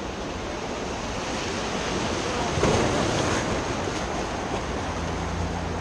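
Gallatin River whitewater rushing steadily around the raft, with a louder splash of a wave about two and a half seconds in. A low steady rumble joins near the end.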